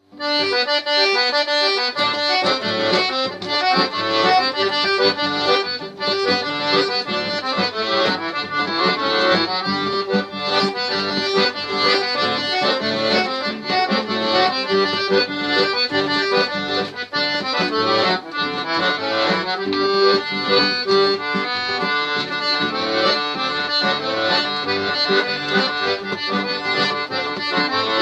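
Accordion playing an instrumental tune, several notes sounding together.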